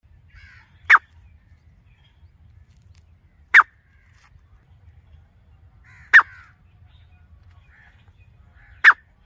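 Female grey francolin calling from close by: four short, sharp, loud calls spaced evenly about two and a half seconds apart.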